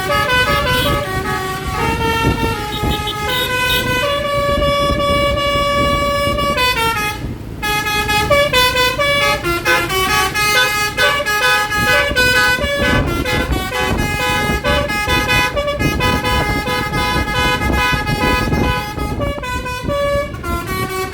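Telolet 'basuri' multi-tone horn on the Kalebas Taxi-X tour bus playing a tune. Its notes change in quick steps, some are held for a couple of seconds, and a few slide in pitch, over a low rumble.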